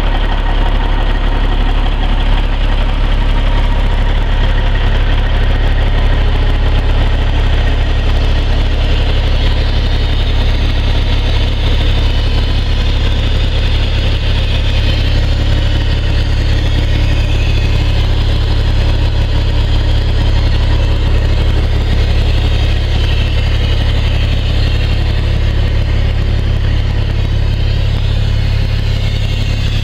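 Kenworth W900 semi truck's diesel engine idling steadily.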